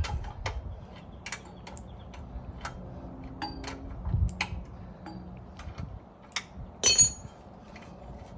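Scattered light metallic clicks and taps of hand tools on an edger's blade adjustment, with a dull knock about four seconds in and one louder, ringing metal clink near the end.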